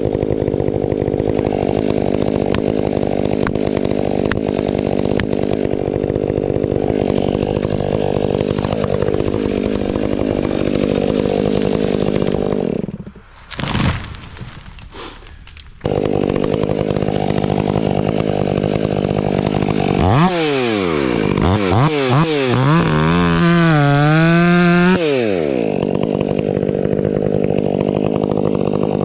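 Husqvarna 500i two-stroke chainsaw running steadily at low speed. About thirteen seconds in the sound drops away sharply for roughly three seconds and comes back abruptly. Around twenty seconds in the saw is revved up and down for about five seconds, its pitch swinging, then it settles back to the steady low note.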